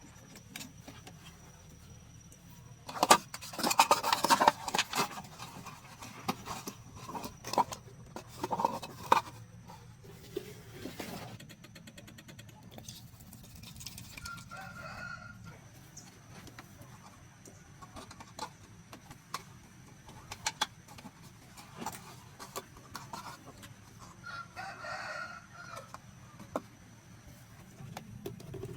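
A rooster crowing twice, about halfway through and again near the end, over scattered sharp clicks and knocks; the loudest is a burst of clattering a few seconds in.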